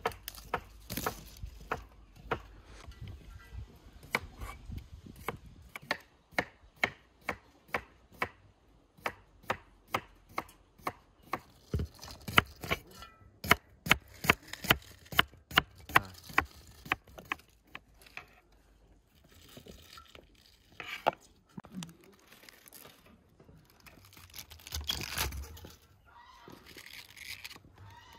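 Crinkle-cut knife slicing a cucumber on a wooden cutting board: a steady run of sharp knocks at about two a second. After that come softer, scattered handling noises, louder for a moment near the end.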